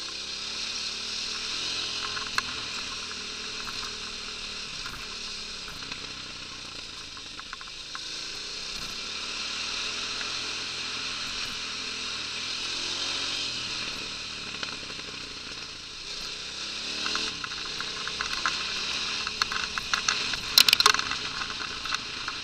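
KTM 990's LC8 V-twin engine running as the bike rides a dirt track, its revs rising and falling under a steady wind hiss. From about three-quarters of the way in there is a run of sharp clicks and knocks.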